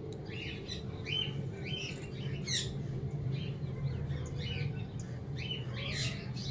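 Small birds chirping, many short quick calls repeated throughout, over a steady low background hum.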